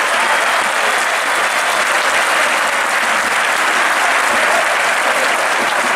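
Football stadium crowd applauding, a steady unbroken clapping.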